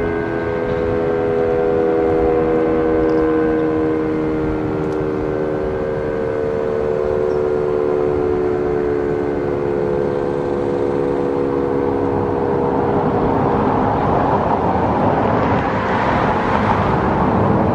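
Two Sentry outdoor warning sirens, a 3V8 and a 7V8, sounding together as a steady chord of several tones that drifts slightly lower in pitch. Near the end a passing car's noise swells and fades over them.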